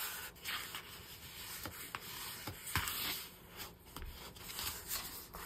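Hands rubbing and sliding over folded cardstock, pressing the folds flat, with irregular paper swishes and a few soft clicks.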